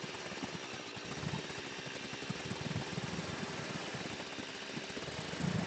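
Chainsaw engine running steadily, mostly at idle, with a brief louder rise near the end.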